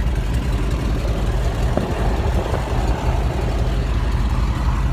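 Boeing Stearman biplane's radial engine running steadily at low power, warming up on preheated oil, heard from the cockpit.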